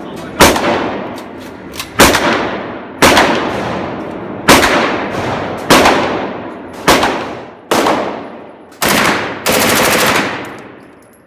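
Gun fired at a range: about seven single shots a second or so apart, each trailing off in a long echo, then a rapid full-auto burst of about a second and a half near the end.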